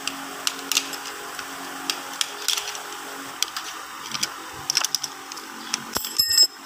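Screwdriver tip clicking and tapping against the steel planet gears of a John Deere tractor's rear final drive hub: a string of irregular light metallic clicks, with a short ringing clink about six seconds in.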